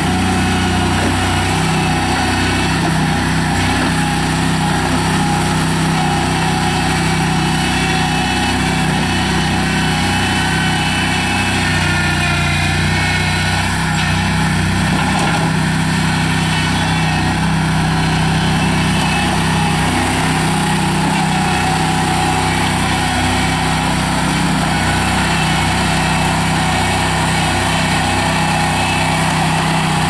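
Toro Dingo TX420 mini skid steer's 20 hp Kohler V-twin gasoline engine running steadily as the machine drives on its tracks and works its loader bucket in dirt. A faint high whine comes and goes in the middle.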